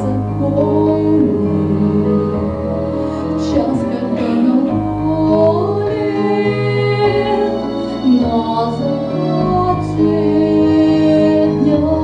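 A woman singing a song into a microphone over instrumental accompaniment, holding long notes that waver with vibrato.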